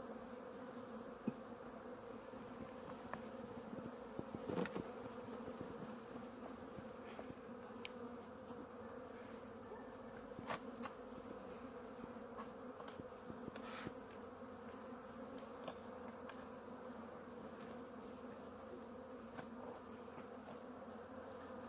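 A colony of Caucasian honeybees buzzing with a steady hum in an opened hive, with a few light clicks now and then.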